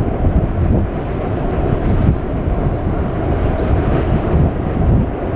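Wind buffeting the microphone: a loud, steady, low rumble that fluctuates throughout.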